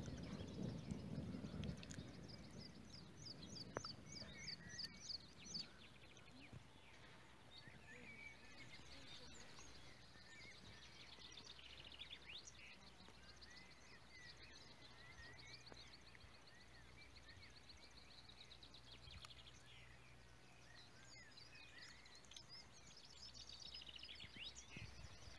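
Faint countryside birdsong: small birds chirping and trilling, with a quick run of high repeated notes a few seconds in. A low rumble of distant thunder fades out in the first couple of seconds.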